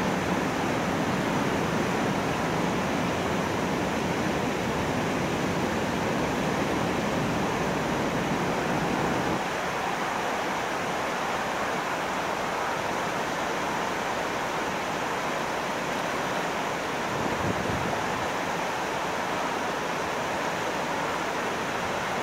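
Water rushing steadily through river sluice gates. About nine seconds in, the deep rumble beneath it drops away while the rushing carries on.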